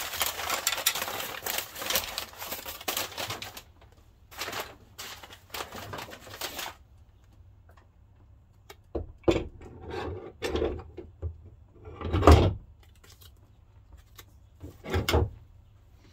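Crumpled kraft packing paper crinkling and rustling as steel pry bars are pulled out of it, for the first three or four seconds, then a few shorter rustles. After that, scattered knocks and thumps as the pry bars are handled and laid on the bench, the loudest about twelve seconds in.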